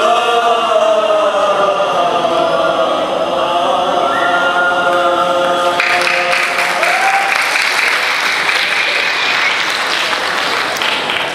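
Teenage boys' qasidah group holding a long closing note together. Audience applause breaks out about halfway through and carries on as the singing fades.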